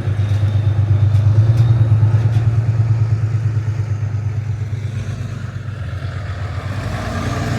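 Car engine idling with a loud, low rumble and a fast, uneven pulse; it eases off a little midway and builds again near the end.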